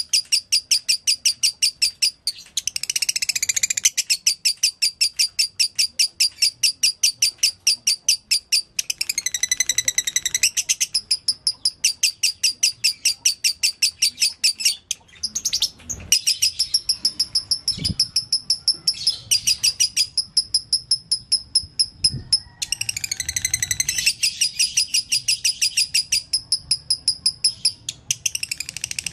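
Fischer's lovebird singing long runs of rapid, high repeated chirps, each run lasting several seconds before a short break: the continuous 'konslet' song style that lovebird keepers call dobelan. A few faint low knocks come around the middle.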